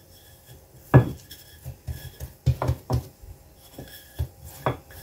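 Wooden rolling pin working sticky yeast dough on a floured worktop: a run of irregular knocks and thumps as the pin is rolled and set down, the loudest about a second in.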